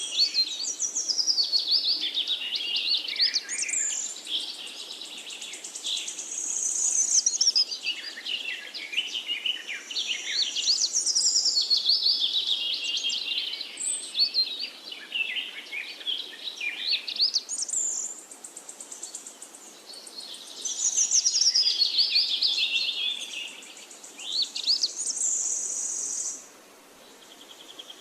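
Several songbirds singing and chirping, their quick rising and falling whistled phrases overlapping one after another, with a steady high buzz that comes and goes.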